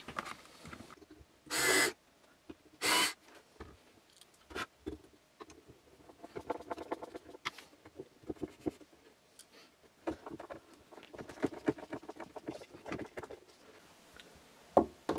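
Screws being driven by hand with a screwdriver through 3D-printed plastic brackets into a wooden base: runs of small creaks and clicks as the screw turns. There are two short hissing bursts near the start.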